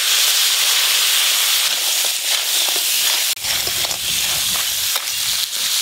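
Crab pieces sizzling steadily in hot mustard oil in an aluminium wok, with the spatula scraping and knocking the pan now and then. The sizzle breaks off for an instant about halfway and then goes on.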